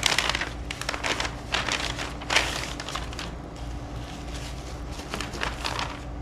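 Packaging crinkling and rustling as it is handled, in irregular bursts, loudest about two and a half seconds in.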